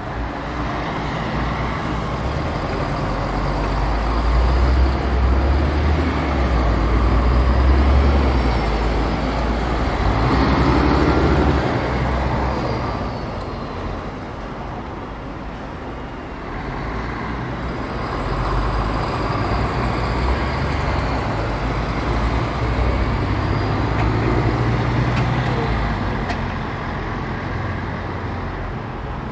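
Street traffic: two heavy road vehicles pass close by one after the other, each with a low engine rumble that swells and then fades.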